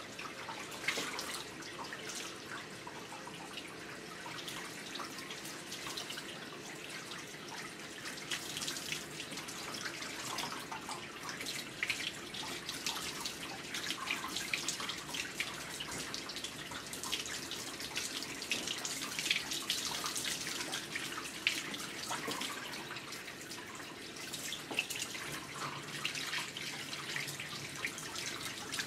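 Water spraying from a hand-held bathing sprayer with a nozzle cover, rinsing a wet Maltese's head and face, with a steady patter of splashes and drips into the tub.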